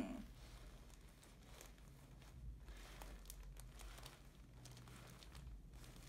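Near silence: faint rustling and crinkling of clothing and the table cover as hands cradle and lift a lying patient's neck, over a faint low hum.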